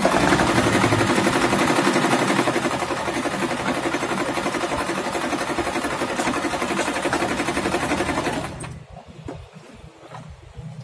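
Singer Simple 3232 portable sewing machine running at a steady speed while sewing a selected pattern stitch. It stops about eight and a half seconds in.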